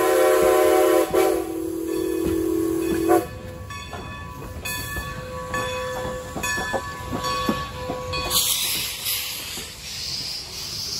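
Strasburg Rail Road steam locomotive's whistle sounding a long ghost-whistle chord. It drops to a lower chord about a second in and cuts off about three seconds in. Scattered knocks of the passing train follow, then a steady high hiss from about eight seconds in.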